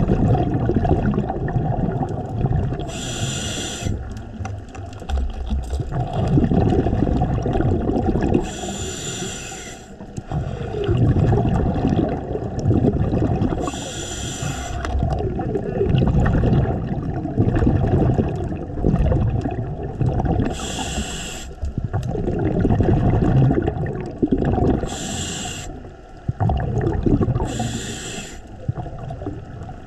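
Scuba diver breathing through a regulator underwater: six short hissing inhalations, each followed by a longer low rumble of exhaled bubbles.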